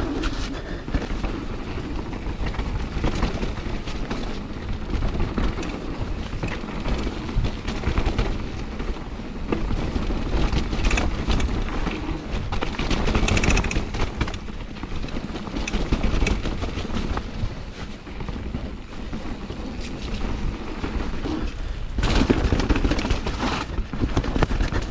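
Mountain bike riding down a wet, muddy trail: tyre noise on wet ground and frequent clattering knocks as the bike goes over bumps and roots, with wind on the microphone.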